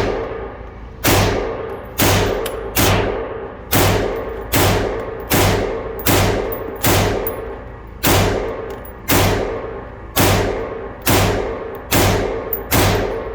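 CZ Bren 2 pistol fired semi-automatically, about fourteen shots at a steady pace of roughly one a second, each followed by a long echoing decay, emptying a magazine.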